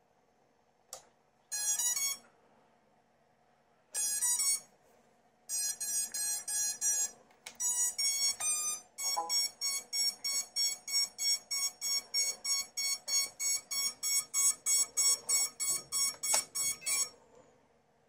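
Electronic beeps from an FPV racing quadcopter's electronics as it is powered on the bench. Several short groups of pitched beeps, one with rising notes, give way to a fast even run of identical high beeps, about four a second, that stops suddenly near the end.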